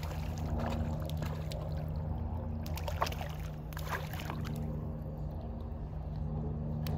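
A hooked rainbow trout splashing and thrashing at the surface of the pond as it is reeled in, with several splashes around the middle. A steady low hum runs underneath.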